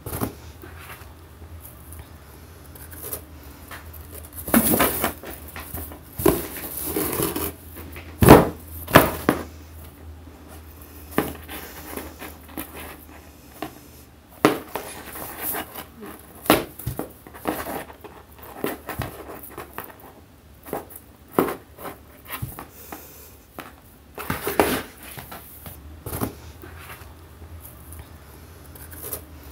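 Cardboard box scraping, rustling and knocking at irregular moments as a cat's leg pushes through a hole in it and paws around. The loudest knocks come about eight and nine seconds in.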